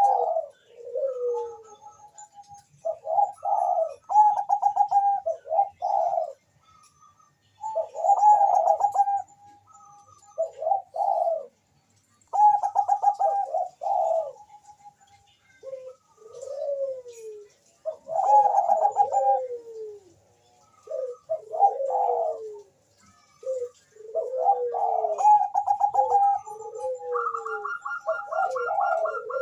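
Zebra dove (Bangkok-line perkutut) cooing in repeated phrases: quick trilled coos, each ending in notes that slide down, with short pauses between them. A higher pulsed note joins in near the end.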